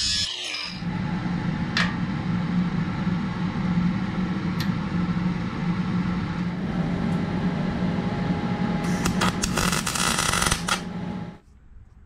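Angle grinder finishing a cut through a steel drill bit, then running steadily without load, with a couple of sharp clicks. It bites into the metal again for about two seconds near the end and then stops abruptly.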